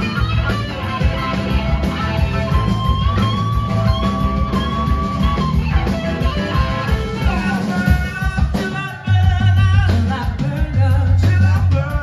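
Live blues-rock band: an electric guitar plays a lead line with long gliding notes over organ and drums. Just before nine seconds in there is a brief dip, and then the band comes back in louder with a heavy low end.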